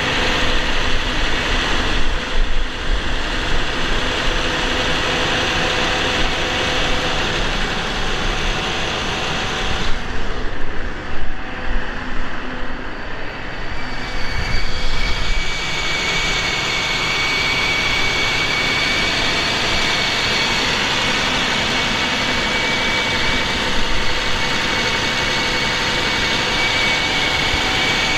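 Cummins ISX 450 HP inline-six diesel truck engine running steadily, a runner in working order. A steady high whine rides over it in the second half.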